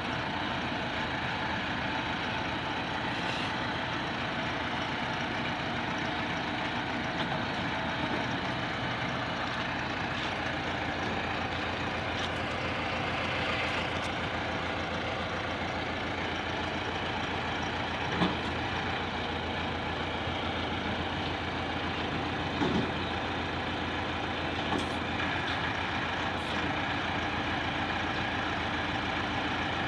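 Diesel tractor engine running steadily as the tractor drives with a mounted road-grader attachment. Two brief knocks stand out in the second half.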